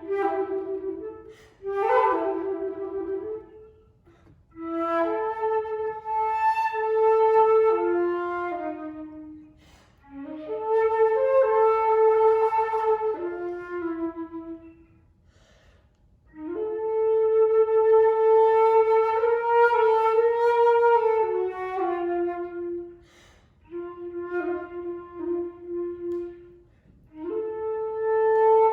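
Solo flute playing a slow, unaccompanied melody in the low register, in separate phrases with short pauses for breath between them.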